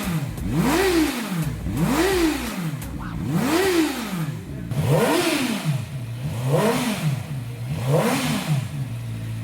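CFMOTO 500SR motorcycle engine blipped six times in a row, each rev rising and dropping straight back toward idle, the last three slightly lower, then settling to a steady idle near the end.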